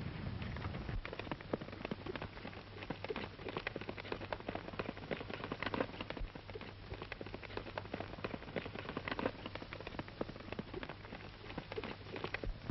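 A horse galloping, a dense irregular patter of hoofbeats on hard ground, over the steady low hum of an old film soundtrack.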